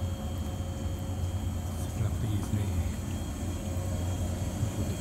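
Stationary 455-series electric train standing at the platform, a steady low hum with a faint high whine.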